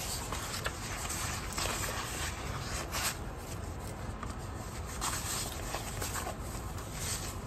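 Sticker sheets rustling and sliding against one another as they are leafed through by hand, in several short, soft rustles.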